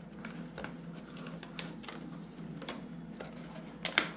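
Earbud packaging being opened and handled: light rustling with scattered small clicks, and a sharper click about four seconds in.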